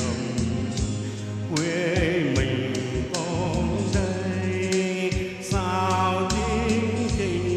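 Karaoke-style song accompaniment: a melody line with vibrato over a steady bass pattern and a regular drum beat.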